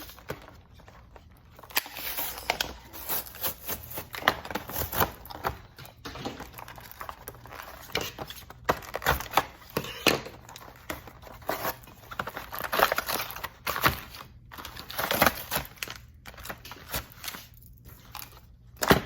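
Packaging of a slime kit being crinkled and torn open by hand: irregular bursts of crinkling and tearing.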